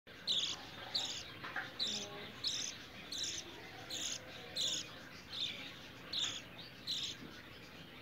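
Budgerigar chick, about thirteen days old, giving short high-pitched begging chirps over and over, a little more than one a second, as it waits to be hand-fed formula.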